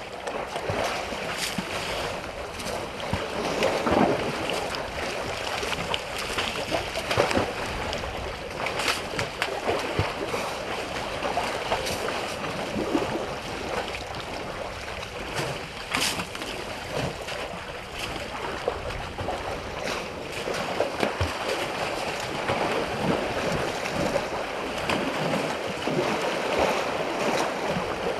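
Water sloshing and splashing as African elephants bathe in a waterhole, one rolling on its side in the shallows, with now and then a sharper splash.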